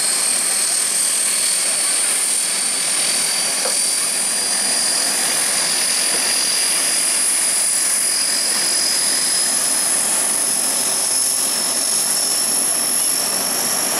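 C-130 Hercules's four Allison T56 turboprop engines running on the ground: a steady loud rush with a high turbine whine that rises slowly in pitch.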